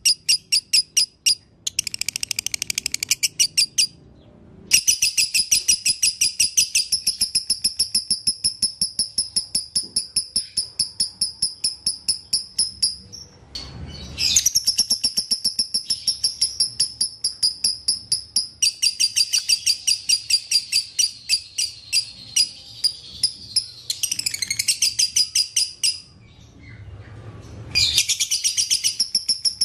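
Lovebird singing its long chattering 'konslet' song: a fast, unbroken run of high, clipped chirps that goes on for many seconds, breaking off briefly three times.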